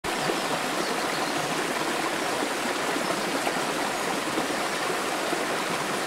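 Rushing water of a small waterfall and stream, a steady, even splashing hiss.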